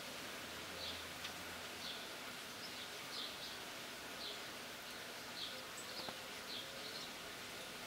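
Quiet outdoor ambience: a steady faint hiss with short, high chirps repeating about once a second at uneven spacing.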